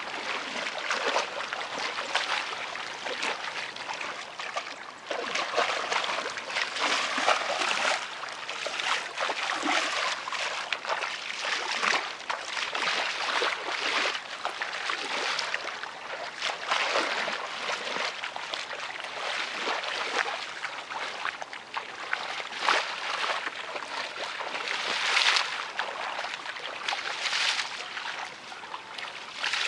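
Shallow muddy water sloshing and splashing as people wade through it barefoot and grope in it by hand, in irregular surges every second or so.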